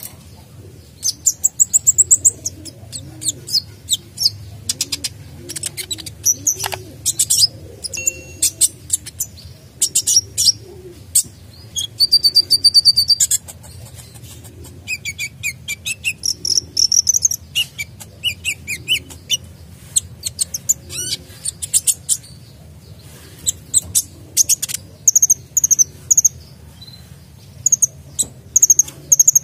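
Caged male sunbird singing a fast, busy song of short high chirps, rapid trills and sliding notes, in quick bursts with brief pauses, packed with varied filler notes.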